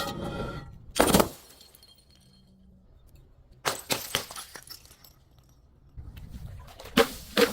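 Glass bottles shattering: a brief ringing, then a loud crash about a second in, a cluster of cracks near four seconds, and two more crashes near the end.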